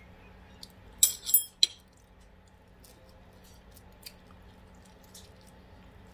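Cutlery clinking sharply against a dish three times in quick succession about a second in, with a few faint small clicks afterwards and a low steady hum underneath.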